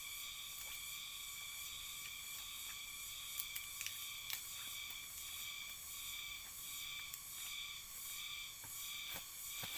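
Steady chorus of insects, a high-pitched drone that pulses slowly and evenly, with a few soft clicks and rustles of pineapple crowns being handled and set into dry straw mulch.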